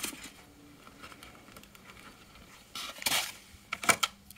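Handling of a polystyrene foam packing insert: low scuffing while it is lifted, then a short scrape and a few light clicks as it is set down and handled.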